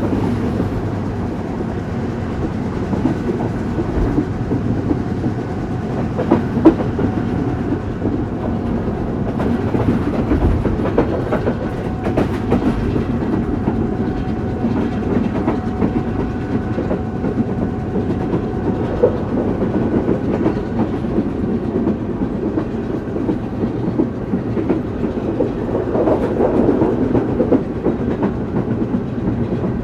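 Express train running along the track, heard from inside a passenger coach: a steady rumble of wheels with the clickety-clack of rail joints and many small knocks throughout.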